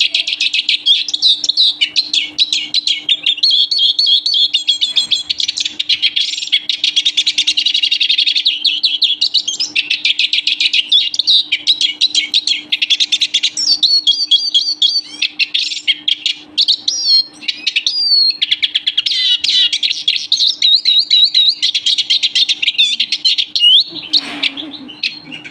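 European siskin singing: a long, fast, twittering song of rapid trills and chirps with short breaks. A faint steady hum runs underneath, and there is a brief noise near the end.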